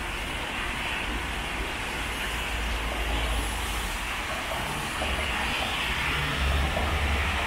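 Traffic on a rainy city street: a steady hiss of rain and tyres on wet pavement, with a low engine rumble from passing vehicles that grows louder near the end.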